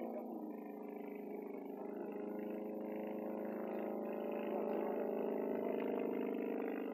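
A Hummel Ultracruiser homebuilt light plane flying overhead, its engine a steady drone with a clear pitch, growing louder about five seconds in as the plane comes nearer.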